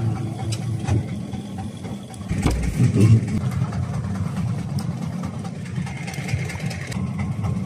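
Small fishing boat's engine running steadily at low revs while a gill net is hauled aboard, with a brief louder low bump about two and a half seconds in.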